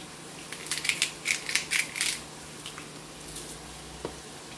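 Seasoning dispensed from a small hand-held plastic spice container over the pan: a quick run of about eight sharp strokes lasting about a second and a half, then a few faint ticks and a soft knock.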